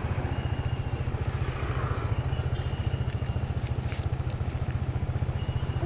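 Motor scooter's small engine idling steadily with a fast, even pulse, with a few light clicks about halfway through.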